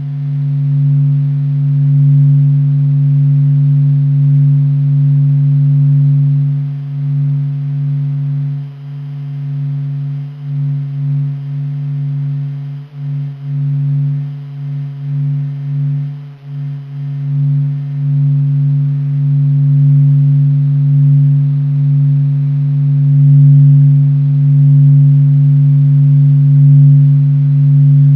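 Sonified sound of the Sun from NASA: a low, steady drone of a few held tones, wavering and dipping in loudness for several seconds in the middle.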